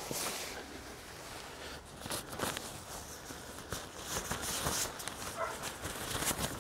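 Rustling of tent fabric and guy line with irregular small clicks and scrapes as a tent peg and its adjuster are handled while pitching a tent.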